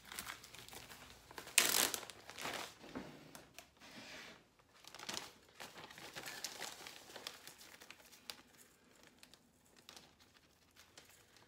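Plastic zip-top freezer bag crinkling and rustling as it is handled and opened, with a measuring cup scooping dry breadcrumbs from inside it. The loudest crinkle comes about two seconds in, and the rustling grows sparser and quieter after the middle.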